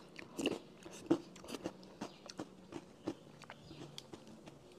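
Quiet close-up mouth sounds of a person eating chewy yoghurt: irregular wet chewing clicks and smacks, with light taps of a plastic spoon in the cup.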